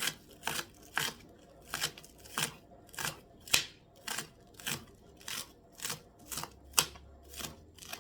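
Kitchen knife chopping vegetables on a cutting board: short, sharp strikes about twice a second, slightly uneven in spacing.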